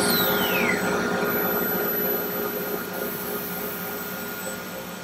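HSD router spindle of a CNC router spinning down: its high whine falls steadily in pitch and dies out within the first second. Under it the Becker vacuum pump for the vacuum table runs on with a steady hiss and hum, slowly fading.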